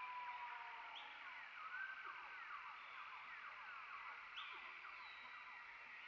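Wild animal chorus of many short, falling chirps overlapping, with a few clear whistled notes: a long, slightly falling whistle in the first second and sharp rising notes about one and four seconds in.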